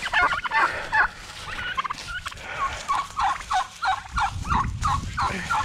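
Domestic turkey toms gobbling and calling in a steady run of short notes, about three or four a second. A low rumble joins in the second half.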